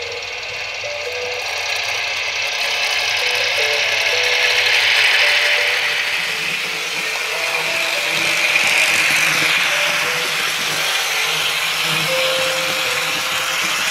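Märklin H0 model trains running on the layout's track: a steady whirring rattle of small motors and metal wheels on rail. It swells louder about a third of the way in and again past the middle.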